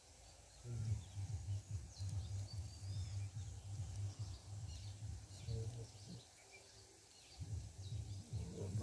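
Low, gusting rumble of wind on the microphone, dropping away for about a second just after the middle, with small birds chirping faintly in the background.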